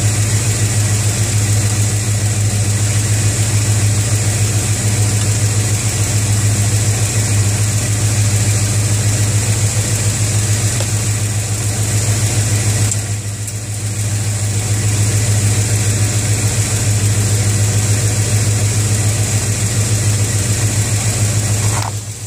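1986 Chevrolet C10's 305 small-block V8 idling steadily with the hood up. Its level dips briefly twice, about 13 seconds in and again near the end.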